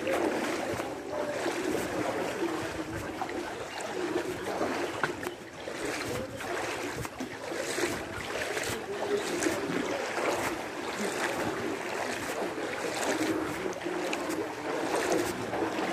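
Floodwater sloshing and splashing as people wade through it and push a bicycle along, with irregular small splashes.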